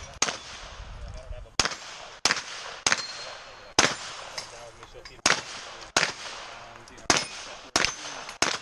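Gunshots on a shooting range: about ten shots, unevenly spaced roughly half a second to a second and a half apart, each with a short echoing tail.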